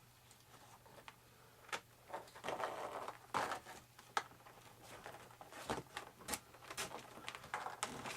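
Handling noises as a small box is pulled out of the model airplane's build: scattered clicks and taps with short rustling scrapes, starting a couple of seconds in.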